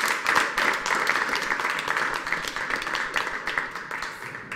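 Applause: a group of students clapping in a lecture hall, gradually dying away near the end.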